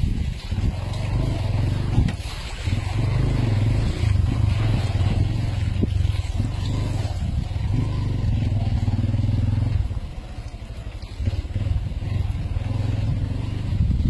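Off-road 4x4 vehicle's engine running steadily under load. It eases off about ten seconds in, then picks up again.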